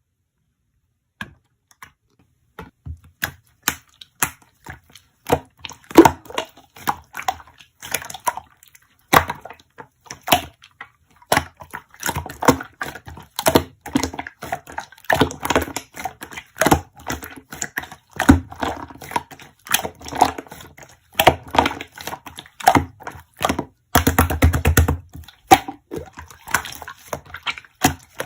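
Slime being squeezed, pressed and poked by hand, making a run of sticky clicks and pops that starts about a second in. Near the end there is a quick second-long burst of rapid crackling.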